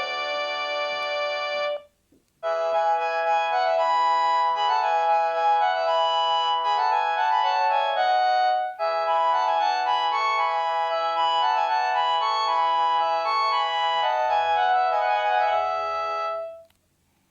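Panasonic KX-TG8301JT cordless phone playing its electronic ringtones: one melody stops about two seconds in, and after a short pause a new ringtone melody plays, breaks off for a moment just past halfway, and plays again until just before the end.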